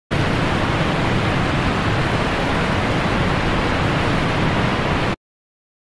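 A steady, even rush of noise, like a hiss, with no tone or rhythm, starting suddenly and cutting off abruptly about five seconds in.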